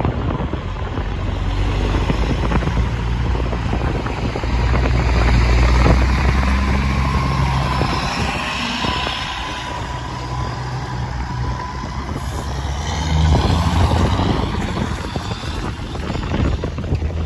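Diesel engine of a semi tractor running as it pulls past close by, loudest about five to six seconds in, with tyre hiss as it goes by. Another vehicle engine swells again later.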